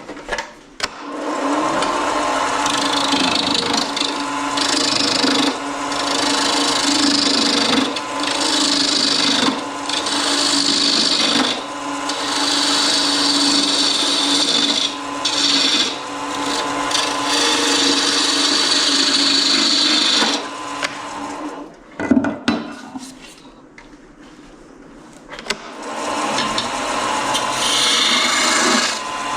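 Laguna wood lathe running while a turning tool cuts a spinning wooden knob blank: a steady scraping hiss over the lathe's motor hum. About three quarters through, the cutting stops for a few seconds with a single knock, then resumes.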